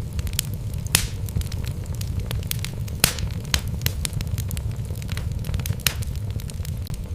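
Wood fire burning in a fireplace: logs crackling with sharp irregular pops over a steady low rumble of the flames, the loudest cracks about one and three seconds in.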